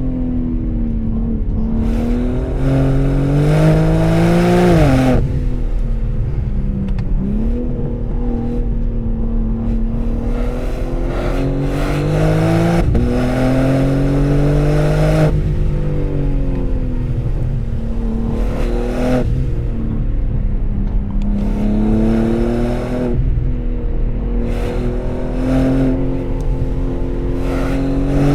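BMW M3 Touring (G81) twin-turbo straight-six on its stock exhaust, under way. Its revs climb in several pulls under acceleration and drop back sharply between them, at gear changes or when the throttle is lifted.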